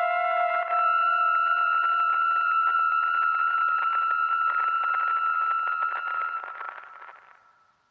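Degraded old-film soundtrack: a steady high electronic tone over crackle, scratches and tape hiss. The tone steps up in pitch under a second in, then everything fades out over the last two seconds.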